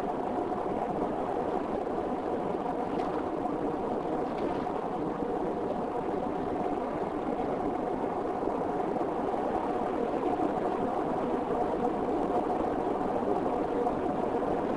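A car driving at a steady speed on a tarmac road: a continuous rumble of engine and tyre noise with a steady hum running through it.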